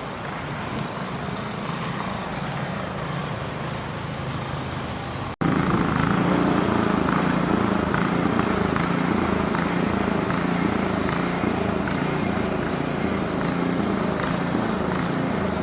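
Steady outdoor city noise of traffic and wind during a snowstorm. It cuts out abruptly about five seconds in and comes back louder.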